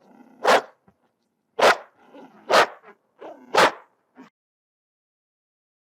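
Angry dog barking: four loud, sharp barks about a second apart, with quieter low growling between them.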